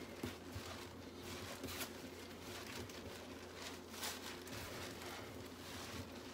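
Hands kneading bread dough on a countertop: faint, scattered soft pats and thuds as the dough is pressed and folded.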